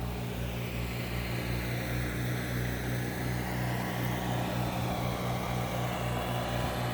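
Two portable generators running steadily, their engine hum pulsing a few times a second.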